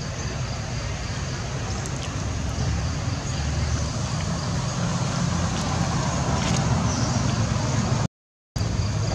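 Steady outdoor background noise: a low rumble with hiss above it. It drops out to silence for about half a second near the end.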